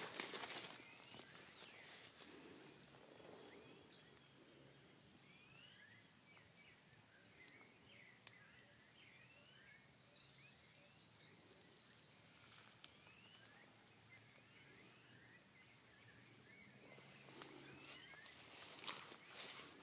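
Quiet plantation ambience of birds chirping in short scattered calls, with a high thin tone coming in short broken stretches during the first half. Rustling footsteps through grass and palm fronds at the start and again near the end.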